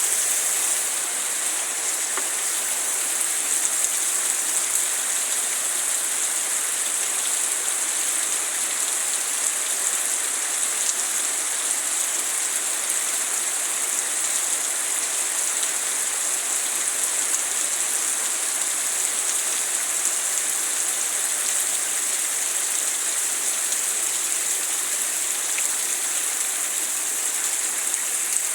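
Steady rainfall: an even, high hiss of rain pattering on surfaces, with no let-up.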